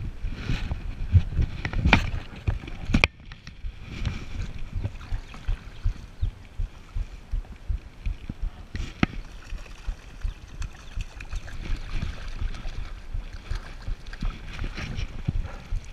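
Creek water running over a riffle, with irregular wind buffeting on the microphone and a few sharp knocks.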